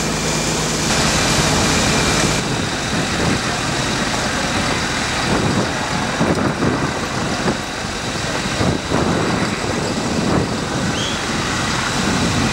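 Outboard motors of small boats running, loudest in the first couple of seconds as a rigid inflatable speeds past, then a steadier engine sound with uneven low surges.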